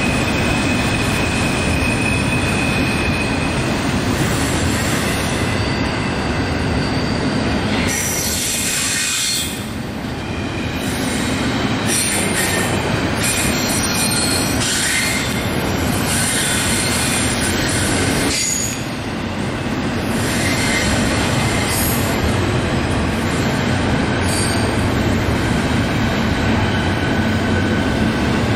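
Double-stack intermodal freight train's container-laden well cars rolling steadily past, a continuous rumble of steel wheels on rail with thin high-pitched wheel squeal coming and going. The noise dips briefly twice, about 9 and 19 seconds in.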